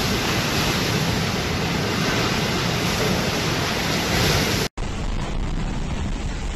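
Storm wind and heavy rain blowing in a dense, steady rush, with wind buffeting the microphone. Nearly five seconds in it cuts off for an instant and comes back slightly quieter, with more low wind rumble.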